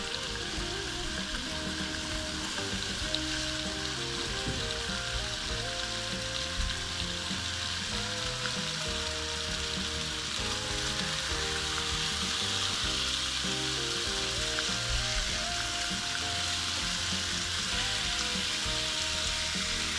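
Fish fillets sizzling steadily in oil on an electric griddle plate, with music playing quietly underneath.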